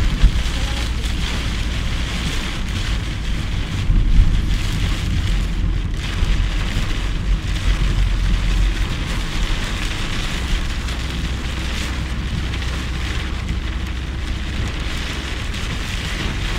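Heavy rain beating on a car, heard from inside the cabin, over a steady low rumble of wind and road noise. The low rumble swells for about two seconds, roughly four seconds in.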